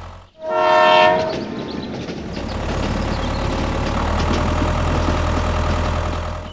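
A train horn sounds once for about a second, then the train runs on with a steady rumble.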